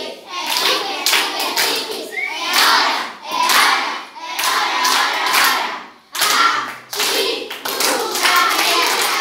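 A group of children singing a birthday song together, clapping along in rhythm.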